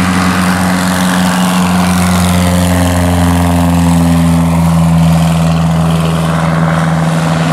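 SPAD VII replica biplane taking off, its engine and propeller running at full power. The steady drone drifts slowly lower in pitch as the plane pulls away.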